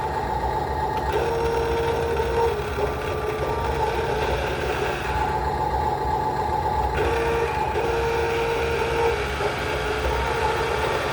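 The electric dump-bed lift mechanism of a TopRace TR212 1/14-scale metal radio-controlled dump truck runs as the bed is raised and brought back down. It makes a steady motor whine over gear noise, and the whine shifts between a lower and a higher pitch several times.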